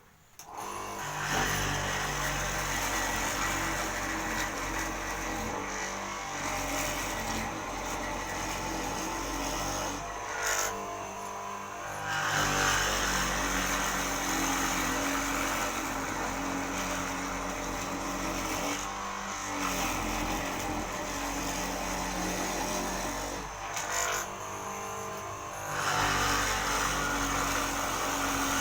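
A woodworking mortising machine starts up and runs, its motor cutting a door mortise, with a continuous pitched machine sound that shifts as it works and eases briefly three times, about 10, 19 and 24 seconds in.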